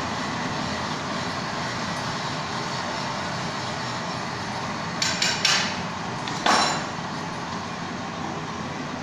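Glassblowing furnace (glory hole) running with a steady roar. A little past halfway a few sharp metal clinks come in quick succession, followed by a louder knock about six and a half seconds in, as the steel blowpipe is lifted off the bench rails.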